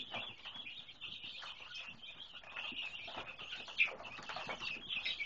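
A flock of week-old Cornish Rock broiler chicks peeping while they feed: a steady chorus of many overlapping high peeps, with one louder peep about four seconds in.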